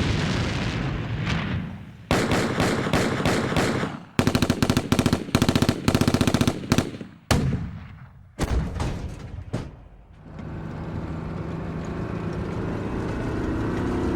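Military sound effects montage: two heavy blasts that die away slowly, then about three seconds of rapid machine-gun fire and a few separate gunshots. From about ten seconds in, a steady low rumble builds slowly.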